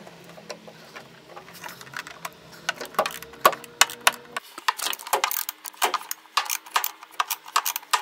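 Irregular sharp clicks and clinks of hand work on a washing machine's hoses and wire spring hose clamps as they are undone, coming quicker in the second half.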